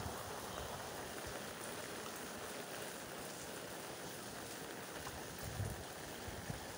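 Steady rain falling on a wet concrete lane and puddles: an even hiss, with a brief low rumble of wind on the microphone about five seconds in.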